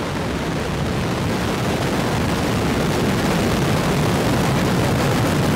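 Relativity Space Terran 1 rocket's first stage, nine Aeon 1 engines, firing at liftoff: a steady, deep noise that grows slightly louder as the rocket climbs off the pad.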